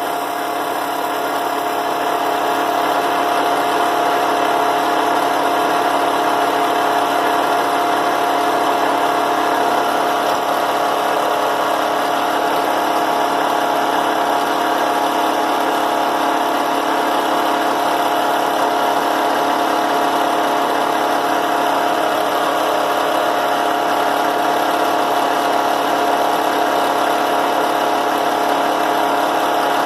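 A cheap drill press, set up as a grinder for sharpening a carbide end mill, running steadily. Its motor gives an even hum with a constant whine.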